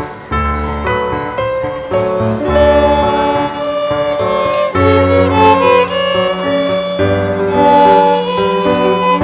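Violin playing a sustained melody over piano accompaniment with a repeating bass line.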